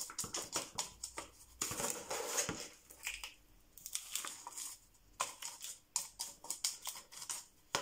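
Plastic scoop digging and scraping through gritty potting mix with perlite in a plastic basin, the mix rustling and pattering as it is scooped and poured, in irregular scrapes with a quieter stretch around four seconds in.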